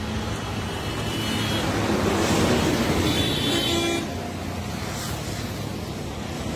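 Road traffic passing, loudest about two to four seconds in, with a vehicle horn tooting briefly about three and a half seconds in.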